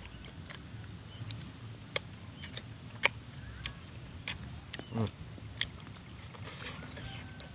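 Close-mouthed eating of crispy battered fried papaya: scattered sharp smacks and crunches, the loudest about three seconds in, with a short low falling hum from the eater about five seconds in. A steady high insect whine runs underneath.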